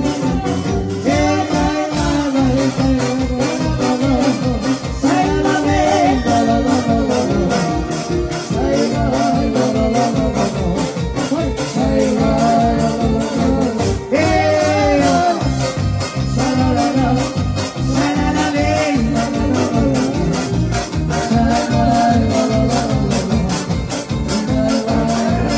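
A small band playing fast dance music live, with electric bass, a steady quick beat and a lead melody line over it.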